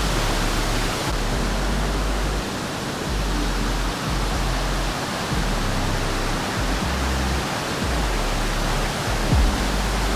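Steady rush of a mountain-river waterfall, under background music with slow, held low notes that change every second or two.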